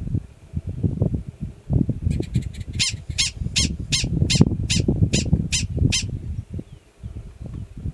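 Gunnison's prairie dog giving its alarm call: a run of short, high-pitched barks, about three a second, starting about two seconds in and stopping about six seconds in. An uneven low rumble runs underneath throughout.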